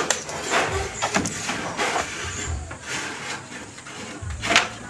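Irregular knocks and clatter of bamboo poles being handled and fitted into a bamboo wall. The loudest knock comes about four and a half seconds in.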